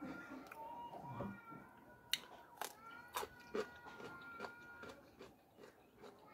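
Close-miked chewing, with a run of crisp clicks and wet smacks about two to five seconds in as food and a crunchy cucumber slice are eaten.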